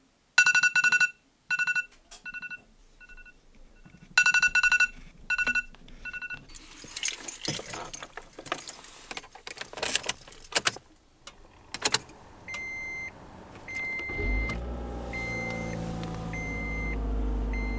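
A car being started: electronic beeps in short groups, then keys jangling and clattering, then the car's warning chime beeping about once a second. About fourteen seconds in, the engine starts and runs at a steady idle under the chime.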